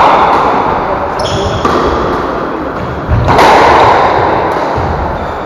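Squash rally on an enclosed court: ball strikes booming off the walls with a long echo, the loudest just past the middle, and short high shoe squeaks on the wooden floor about a second in.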